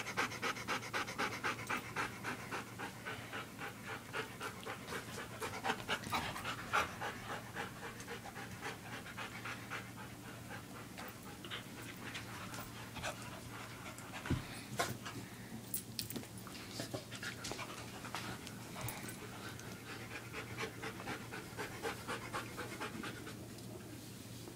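Dog panting in quick, rhythmic breaths, loudest in the first several seconds and fainter after, with a few scattered knocks. A low steady hum runs underneath.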